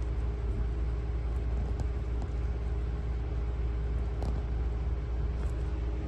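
A steady low hum and rumble of background machine noise, with a few faint short clicks about a second and a half, four seconds and five and a half seconds in.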